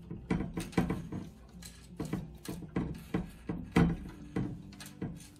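Irregular clicks and light knocks of metal hardware against a steel handle tube, with rubbing of gloved hands, as a bolt, washer and wing nut are fitted by hand to a push reel mower's handle.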